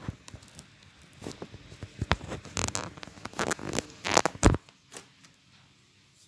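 Irregular rustling, crackles and sharp knocks close to the microphone, stopping about four and a half seconds in.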